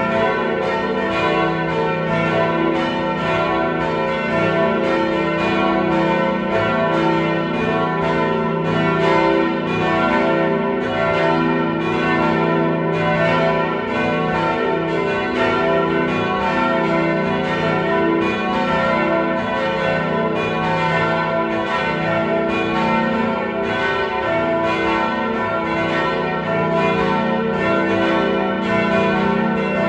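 Full peal of the four church bells of a town church tower, tuned e, f-sharp, a and b, swinging and ringing together. Strikes overlap in a continuous, dense clangour.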